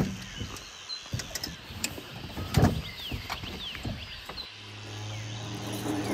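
Gear being handled: a sharp click at the very start, then scattered light knocks and rustles. From about four and a half seconds in, the steady low drone of a car driving, heard from inside the cabin, grows louder.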